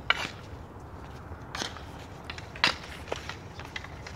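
Hockey sticks clacking and slapping during boot hockey play on an icy court: a string of sharp knocks, the loudest about two and a half seconds in, with a few fainter clicks and scrapes between them.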